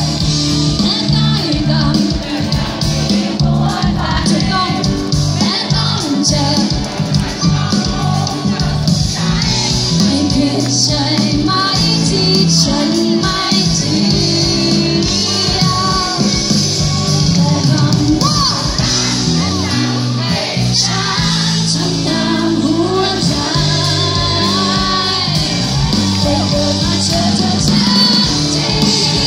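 Live pop band performance with a singer, recorded loud from the audience, with occasional crowd shouts.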